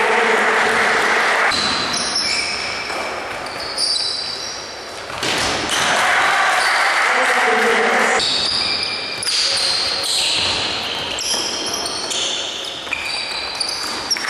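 Basketball game sounds in a gym: sneakers squeaking sharply on the hardwood court again and again, a ball bouncing now and then, and players' voices, all echoing in the hall.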